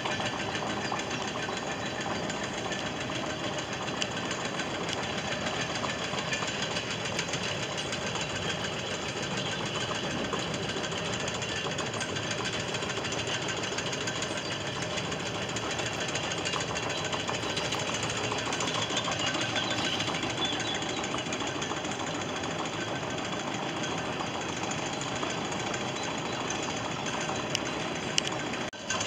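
Chain-towing tug (toueur) hauling itself along the chain laid on the canal bed, its winding machinery and chain giving a steady mechanical clatter. The sound dips briefly near the end.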